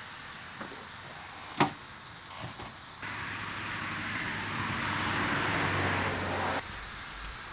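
A sharp click of an SUV's rear liftgate latch releasing, followed by a few lighter knocks. Then a steady rushing noise builds for a few seconds and cuts off suddenly.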